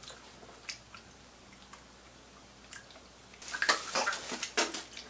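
Faint wet mouth clicks of someone chewing a jelly bean, then, about three and a half seconds in, a second or so of louder rustling, breathy noise in several strokes.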